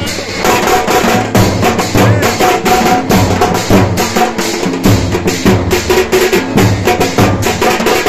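Festive music led by drums struck with sticks in a fast, steady beat, with a sustained melody note sounding over it at times.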